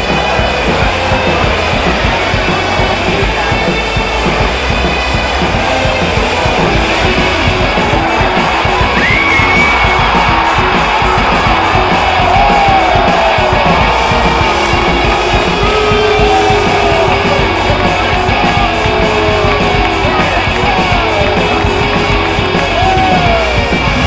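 Rock music with guitar and singing, playing continuously at a steady level.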